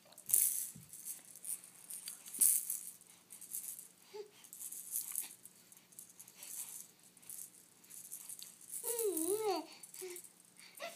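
A rattle shaken in irregular bursts of dry, high-pitched rattling. About nine seconds in comes a short, wavering high-pitched sound.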